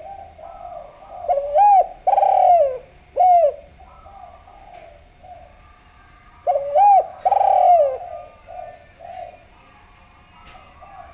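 Spotted dove cooing: two loud phrases of a few swooping notes each, about a second in and again past the middle, with fainter cooing throughout.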